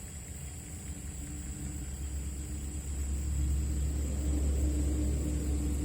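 A motor vehicle passing on a nearby road: a low engine rumble that grows louder over the first few seconds, peaks near the end, then begins to ease off.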